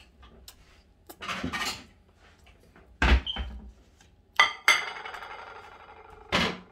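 Kitchen dishes being handled: a wooden cutting board knocks on the counter, then a ceramic plate is set down with two sharp clinks and rings on briefly. A short scuffing noise comes near the end.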